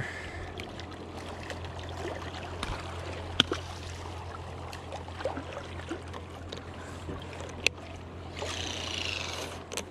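Water lapping and trickling against shoreline rocks over a steady low hum, with a couple of sharp clicks from handling the fishing rod and reel.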